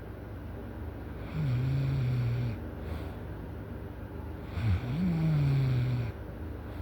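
A person snoring loudly: two long snores about three seconds apart, each on a low, nearly steady pitch that sags slightly at the end. The second opens with a short sharp catch that dips and rises in pitch.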